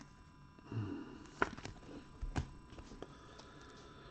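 Faint handling noise from trading cards and packs on a table: a few soft clicks and taps, the clearest about one and a half seconds in and just after two seconds in.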